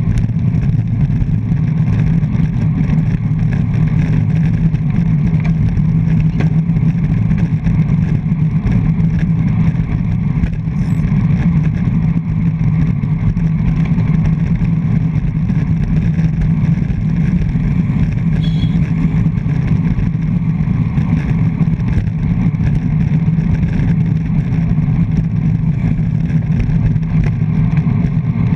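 Loud, steady wind rush and road rumble on a GoPro Hero 3+ fixed to a road bike's front mount while riding at race pace in a pack, deep and unbroken throughout.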